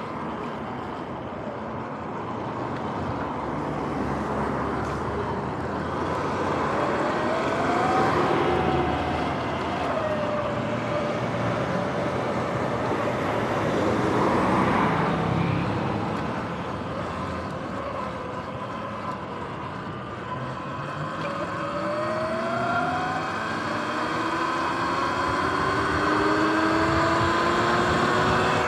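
Sur-Ron X electric dirt bike's motor whining, its pitch rising and falling several times as the bike speeds up and slows, over wind and tyre noise. Road traffic is heard too, louder about halfway through as a semi-truck passes.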